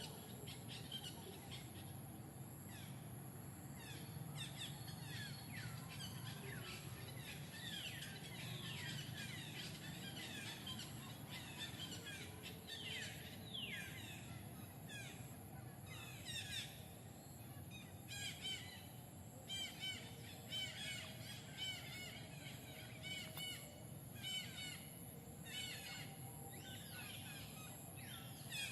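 Birds chirping, with many quick falling whistles and, in the second half, rapid clusters of short trilled notes, over a steady low background rumble.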